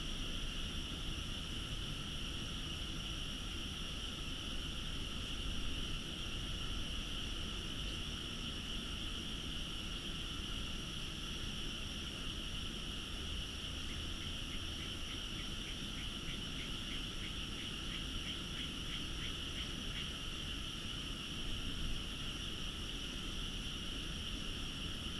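Night chorus of frogs from nearby rice paddies, a steady high-pitched din over a low background rumble. About halfway through, a nearer call repeats quickly, about three times a second, for several seconds.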